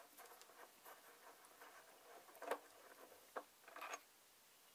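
Faint scraping, then a few sharp metal clicks and a short rattle as a bolt is worked loose and turned out by hand from the X-ray head's metal housing.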